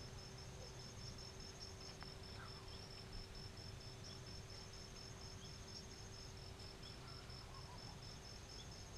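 Faint, steady high-pitched insect trilling, rapidly pulsed like crickets, with a second, higher trill that drops out and comes back; a few soft chirps sound here and there.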